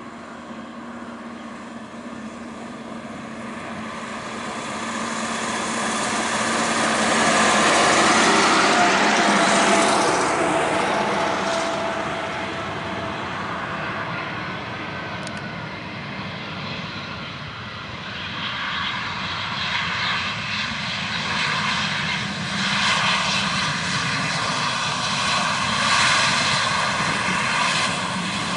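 Airbus A320 jet engines as the airliner lands and passes. The noise builds to a peak about eight seconds in, with a falling whine as it goes by, then stays loud again from about twenty seconds in as the jet rolls down the runway.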